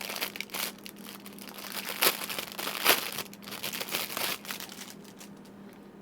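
Plastic packaging crinkling and crackling as it is handled, with a couple of sharper crackles about two and three seconds in; it dies down near the end.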